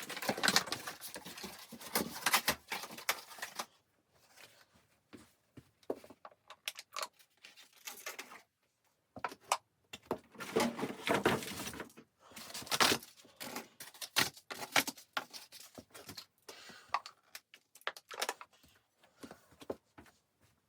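Irregular rustling, crinkling and clicking of things being handled close by, in bursts separated by short pauses.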